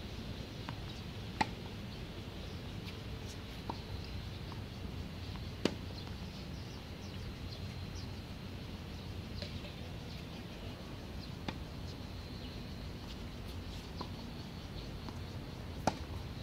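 Tennis balls struck by rackets in a rally: sharp pops a few seconds apart, some loud and some faint, over a steady low background rumble.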